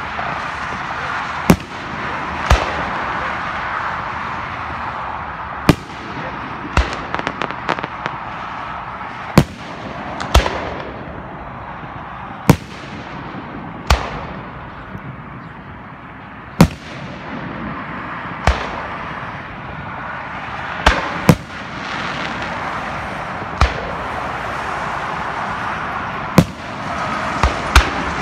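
Aerial firework shells bursting one after another: about fifteen sharp bangs spaced one to three seconds apart, with a quick run of smaller pops about seven seconds in. A steady wash of background noise runs under them.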